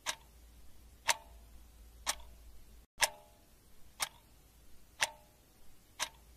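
Clock ticking slowly and evenly, one tick a second, alternating between a dry tick and a tock with a little more ring.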